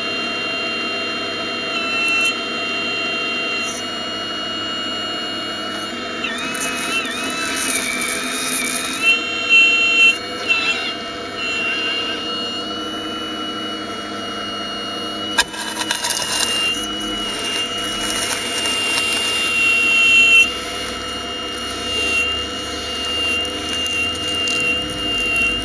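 Radio-controlled model Hitachi 870 excavator working: a steady high motor whine that wavers and dips in pitch as the arm and bucket move, with one sharp click a little past halfway.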